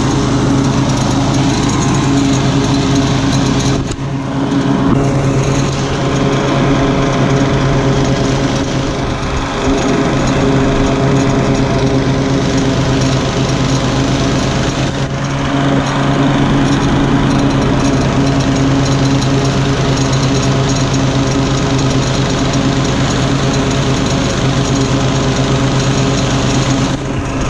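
30-inch walk-behind lawn mower running steadily while mowing, its engine note dipping briefly about four seconds in and again around fifteen seconds in.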